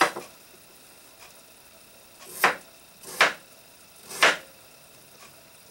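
Kitchen knife chopping peeled parsnips into chunks on a wooden cutting board: one chop at the start, then three more about a second apart near the middle, each a short cut through the root ending in a knock of the blade on the board.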